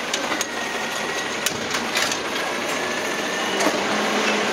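Peterbilt automated side-loader garbage truck running while its hydraulic arm grabs and lifts a wheeled trash cart, with a faint high whine and scattered clanks.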